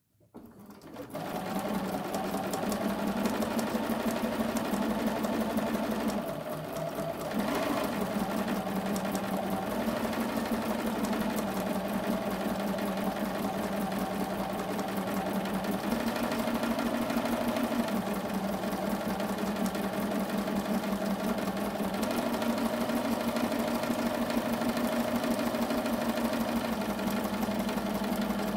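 Bernina sewing machine stitching free-motion thread painting through hooped water-soluble fleece, the needle running fast and steadily. It starts up in the first second or two, eases briefly about six seconds in, and shifts speed slightly a few more times as the hoop is guided.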